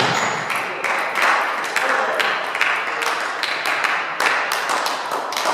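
Spectators clapping in a sports hall, dense irregular applause for a point just won in a table tennis match.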